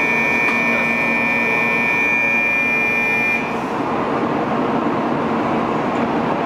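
Shinkansen platform ambience: a steady high electronic tone sounds over the continuous hum of the standing train and station, and cuts off about three and a half seconds in, leaving the hum.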